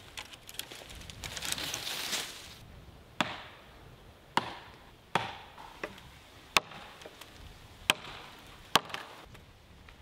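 Axe chopping a small fallen log: about eight sharp strikes, roughly one a second, starting about three seconds in. Before them, a rustle of branches being handled.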